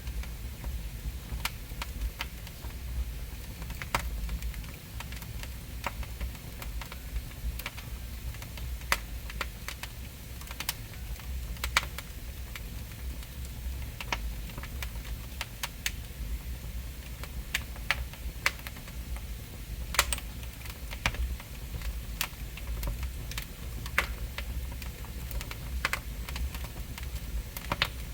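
Firewood burning in a fireplace, crackling with irregular sharp pops over a low steady rumble.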